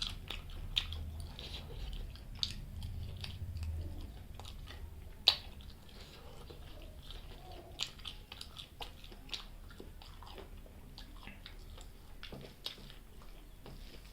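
A person chewing a mouthful of chicken liver curry, gizzard and rice close to the microphone: wet mouth sounds with scattered sharp clicks, the loudest about five seconds in.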